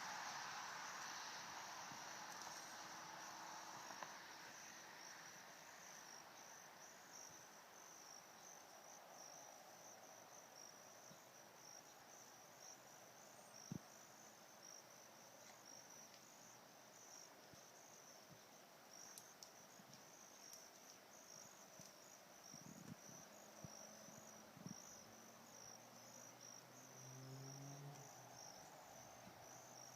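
Faint, steady high-pitched trill of insects, with one sharp click about halfway through.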